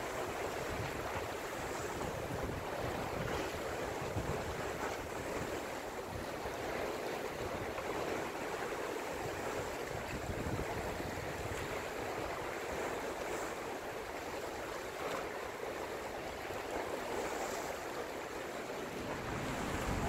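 Sea waves washing and breaking around coastal rocks: a steady rush of surf with no single crash standing out.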